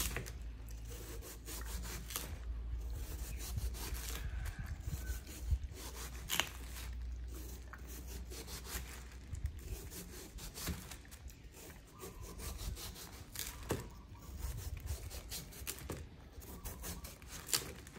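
A knife cutting a watermelon into slices: irregular crunching and scraping strokes as the blade goes through the rind and flesh.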